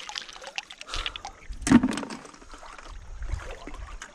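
Shallow seawater lapping and trickling among rocks in a tide pool, with scattered small clicks and one louder sudden sound a little under halfway through.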